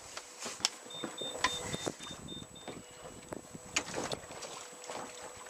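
Irregular knocks and handling clatter aboard a small boat as the crew work a fishing line, with a short run of high, evenly spaced beeps about a second in.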